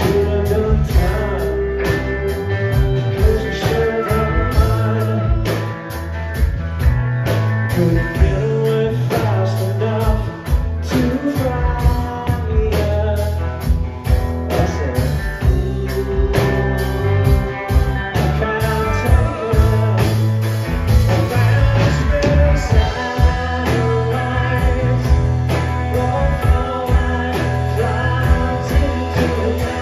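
Live rock band playing: electric guitars, electric bass and drums keeping a steady beat, with singing into the microphones.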